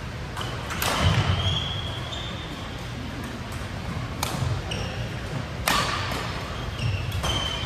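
Badminton rally: rackets strike the shuttlecock with sharp cracks, the loudest about a second in and again near six seconds, while court shoes squeak briefly on the floor between hits.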